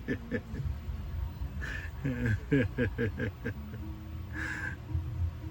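A person laughing in short, quick pulses, in two runs: the first trailing off just after the start, the second from about two seconds in.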